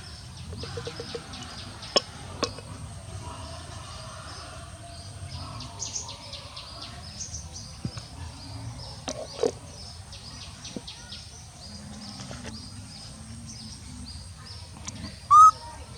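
Outdoor background of small birds chirping over a low steady rumble, with a few sharp clicks and, near the end, one short loud high-pitched call.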